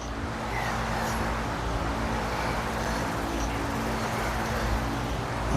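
Steady background noise with a faint low hum running under it.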